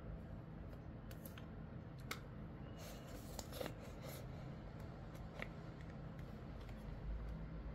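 Steady rain hiss heard through an open window, with scattered light clicks and taps in the first few seconds and a faint low rumble swelling slightly near the end.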